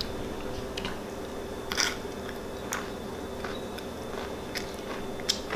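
A person chewing a mouthful of cookie-dough hummus dip, giving a few scattered small wet mouth clicks and smacks over a faint steady hum.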